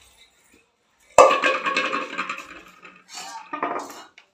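Stainless steel pot set down hard on a concrete floor about a second in: a clang that keeps ringing for a couple of seconds as it fades, followed by shorter sounds near the end.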